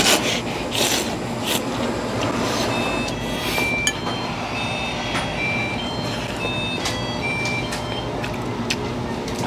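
Ramen noodles being slurped and chewed in short bursts over a steady background din. In the middle stretch, a short electronic beep pattern repeats about every two seconds.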